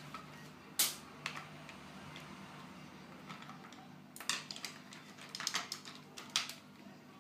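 Light clicks and clatter of paintbrushes being handled as a tiny brush is swapped for a much bigger one: one sharp knock about a second in, then a run of quick taps in the second half, over a faint steady hum.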